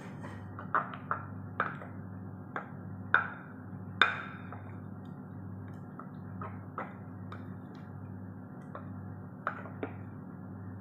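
Scattered sharp clinks and taps of kitchen utensils against cookware, two louder ringing clinks about three and four seconds in, over a steady low hum.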